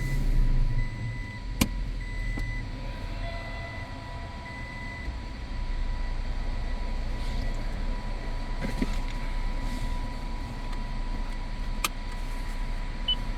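Toyota Tacoma's engine starting, then settling into a steady idle, with two sharp clicks, one about a second and a half in and one near the end.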